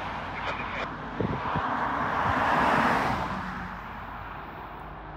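A car passing close by on the road: tyre and engine noise swells to a peak about three seconds in, then fades away.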